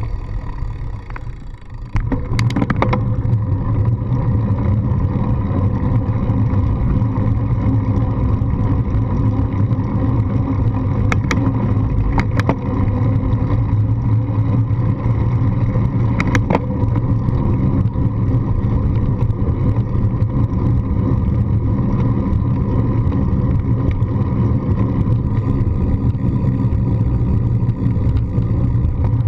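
Steady low rumble and hum of a bicycle ride as heard by a handlebar-mounted GoPro, with tyre and frame vibration carried through the mount. A few sharp clicks stand out, the way bumps over paving joints sound.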